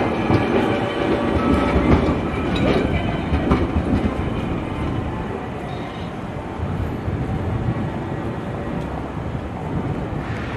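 Streetcar on the Toyama Chihō Railway line running past on its rails, with a steady motor tone and wheel clatter over the track, easing off after about four seconds. Strong wind rumbles on the microphone.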